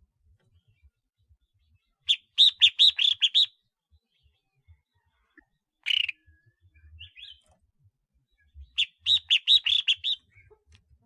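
Collared finchbill singing: two quick phrases of about seven or eight bright, clear notes each, several seconds apart, with a single call note between them.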